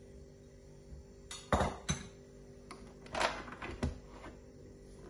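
A handful of knocks and clinks, the loudest about a second and a half in and again about three seconds in: a bowl knocking against the stainless steel bowl of a tilt-head stand mixer as the last of the flour is tipped in, then the mixer head being lowered onto it. A faint steady hum runs underneath.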